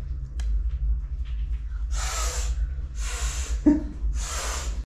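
A small child's breathy huffs: three puffs of air about a second apart, with a short voiced sound between the second and third, over a steady low rumble.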